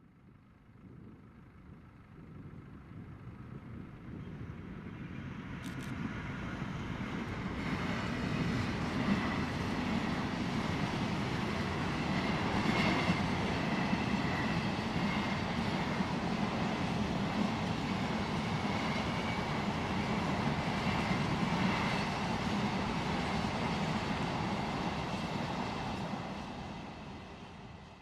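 A train passing on the main line: the rumble builds over several seconds, stays loud for about twenty seconds with a few faint knocks and a thin high ringing from the wheels, then dies away.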